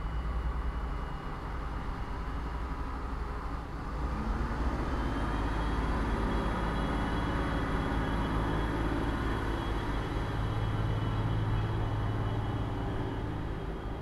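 Train accelerating away from a stop: a low rumble that grows louder about four seconds in, joined by a whine that slowly climbs in pitch, over a steady factory machinery hum.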